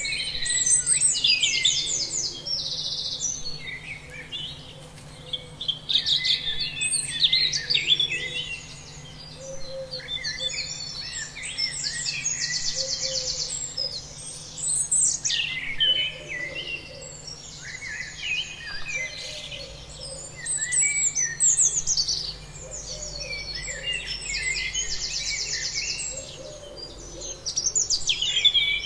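Several songbirds singing over one another, a dense mix of high chirps and quick rattling trills.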